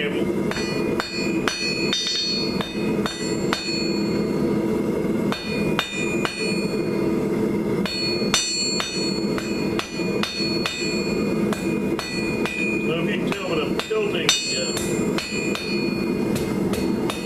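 A hand hammer strikes red-hot quarter-inch square steel held in tongs on an anvil, about two to three blows a second with a few short pauses. Each blow leaves the anvil ringing. A steady low rumble runs underneath.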